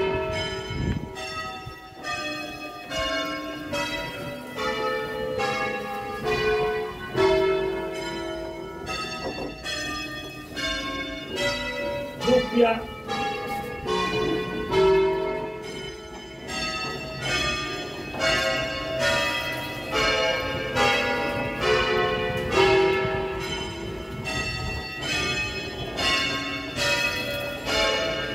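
A ring of nine tuned church bells in E, rung full-circle in the Veronese system by ringers on ropes, the bells striking one after another in a steady rhythm of about two strikes a second, each note ringing on into the next.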